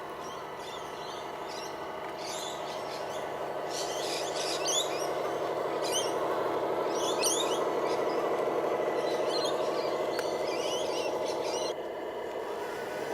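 Electric motor and gearbox of a radio-controlled construction vehicle whining steadily, growing louder, then dropping and changing pitch near the end. Short high chirps come and go above it.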